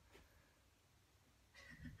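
Near silence, with a faint sound starting near the end.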